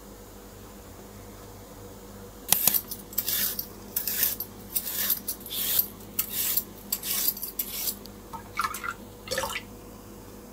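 Metal vegetable peeler scraping the skin off a nagaimo (Chinese yam) in about ten quick strokes, starting a couple of seconds in.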